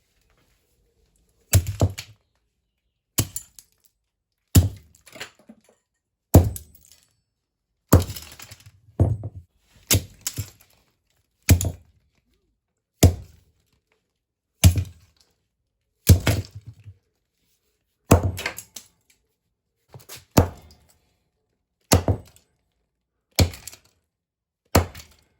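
A fan being struck hard again and again in an attempt to smash it: about sixteen sharp thunks with cracking, roughly one every one and a half seconds, while the part resists breaking.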